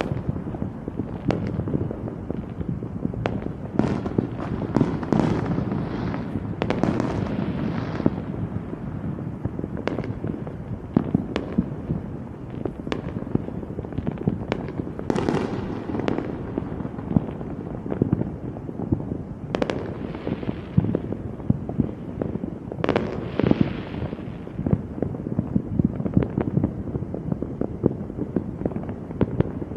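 Fireworks going off: a continual run of sharp bangs, with denser spells of crackling bursts several times.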